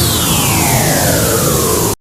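A transition sound effect: a loud rush of noise with a whistling tone that falls steadily in pitch, starting suddenly and cutting off suddenly after about two seconds.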